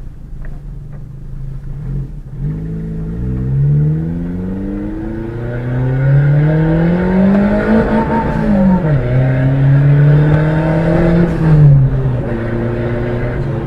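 Turbocharged Fiat Palio 1.0 Fire engine, heard from inside the cabin, accelerating hard through the gears. The engine note climbs steadily from about two seconds in and drops back at gear changes about nine and twelve seconds in.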